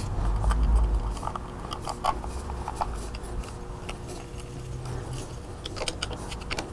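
Small screwdriver driving metal screws into a plastic plasma cutter torch handle: scattered light clicks and scrapes, with a low rumble in the first second.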